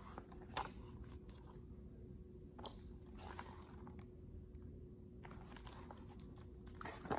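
Pages of a hardcover picture book being turned and handled: a few soft, brief paper rustles and light taps, over a faint steady hum.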